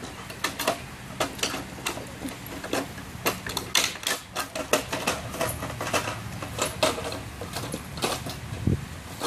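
German shepherd mouthing and chewing a yellow plastic toy truck: an irregular clatter of plastic clicks and knocks, several a second, as teeth and paws work the toy.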